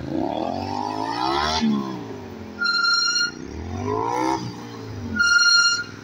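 Motorcycle engine revving up and dropping back again and again as it threads tight turns around cones. Three times, as the engine drops back, a short, steady, high-pitched squeal comes in and is the loudest sound.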